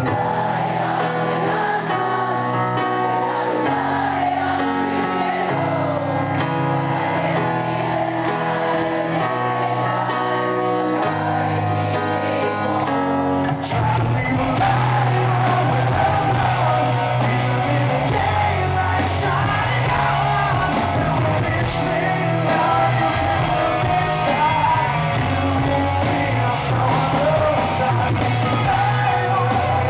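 Live rock song: a singer over guitar, then about 14 seconds in the drums and bass come in and the full band plays, fuller and a little louder.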